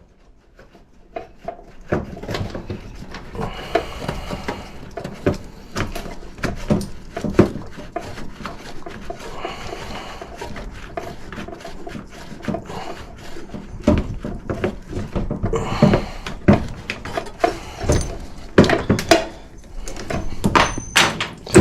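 Irregular knocks, clicks and scraping of hand tools and metal parts as a nut is worked off and an old air handler is taken apart.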